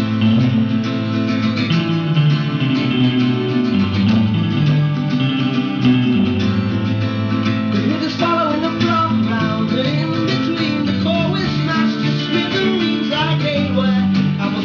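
Live band music: strummed guitars over a bass line. A wavering melody line comes in on top about eight seconds in.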